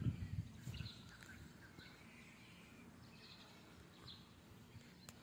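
Faint, scattered bird chirps over a quiet outdoor background, with a soft low rumble in the first second and a brief click near the end.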